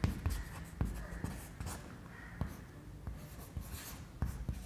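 Chalk writing on a chalkboard: a quick, irregular run of short taps and scratching strokes as letters are written.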